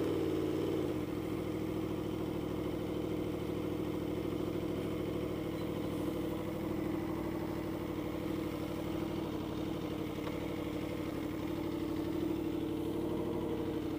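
2015 Aprilia Tuono V4's V4 engine through a GPR Thunderslash aftermarket exhaust, idling steadily; its note bends up and back down briefly in the first second, then holds even.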